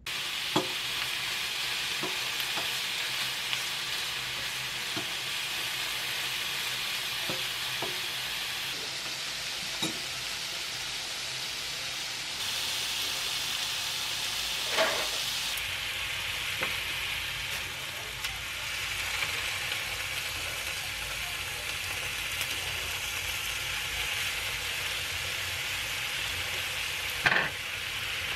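Pork belly strips sizzling and frying in a pan, a steady hiss with a few sharp clicks and knocks, a louder one near the end.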